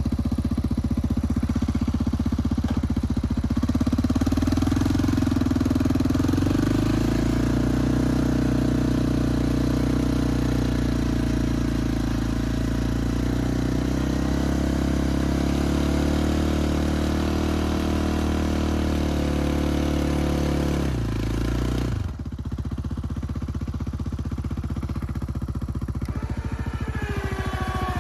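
Engine of a snow-clearing machine running steadily. It works harder a few seconds in, then its note drops abruptly about 21 seconds in and it carries on at a lower, steady pitch.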